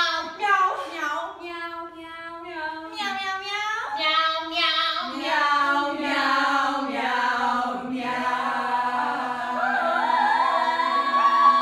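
A small group of women singing a cappella in harmony, with notes that slide up and down. In the second half they hold a sustained chord while a high voice wavers and swoops above it.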